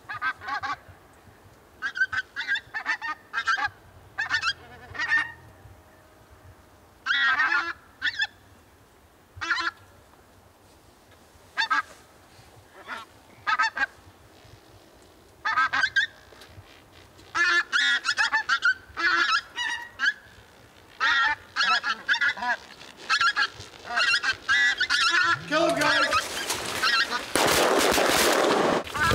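A flock of pink-footed geese calling overhead: short, high honks in scattered bursts that crowd into near-continuous calling over the last third. Near the end a loud rushing noise swells over the calls for about two seconds.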